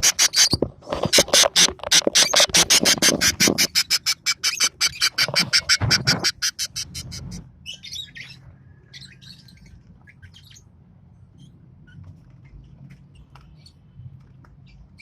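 Lovebirds calling in a rapid run of loud, sharp chirps, about eight a second. The run breaks off briefly about a second in and stops about seven seconds in. Fainter scattered chirps follow.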